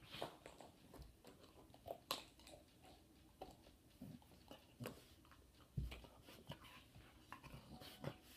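Puppy wriggling and rolling on its back on carpet: faint, irregular soft thumps and small clicks.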